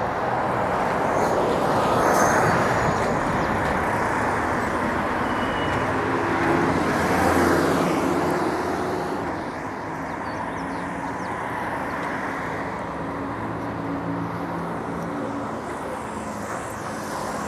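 Road traffic on a city street: vehicles passing with a steady engine hum, swelling about two seconds in and again around seven seconds.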